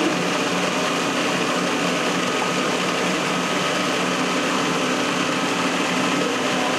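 Food processor motor running steadily, pureeing strawberry jam.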